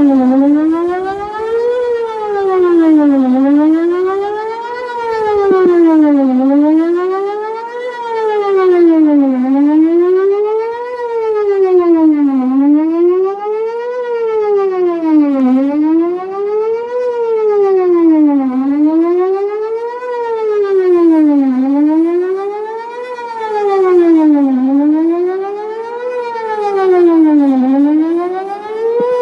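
Whelen WPS 4008 electronic outdoor warning siren sounding a wail, its pitch rising and falling about every three seconds. The rotator has failed, so the speaker head stays pointed one way instead of sweeping around.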